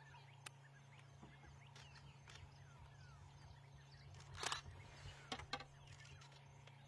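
Faint sounds of vultures crowding a carcass: scattered thin chirping calls and a short, loud rasping burst about four and a half seconds in, with a couple of smaller ones soon after, over a steady low hum.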